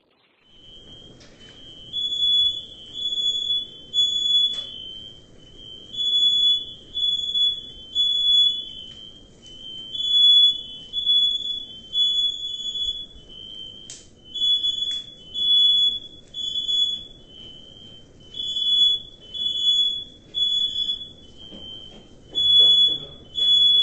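Smoke alarm sounding a high-pitched beep in repeated groups of three with a short pause between groups, the temporal-three pattern that signals smoke or fire, starting about a second in. A steady low rumble runs underneath.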